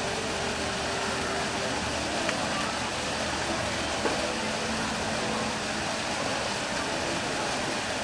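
Steady hiss-like outdoor background noise with faint distant voices, and a couple of small ticks near the middle; no bird call stands out.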